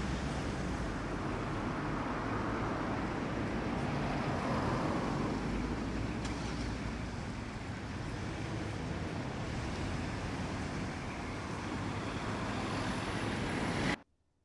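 Steady city street traffic noise, swelling briefly about four seconds in, which cuts off suddenly near the end.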